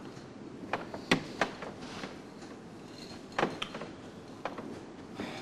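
Scattered sharp knocks and clicks, about six in all, over a steady background hiss.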